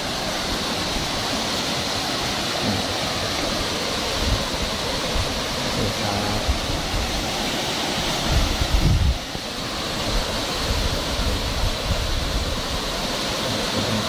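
Pa La-u waterfall pouring over rocks into a pool: a steady rush of falling water. A brief low rumble sounds about two-thirds of the way through.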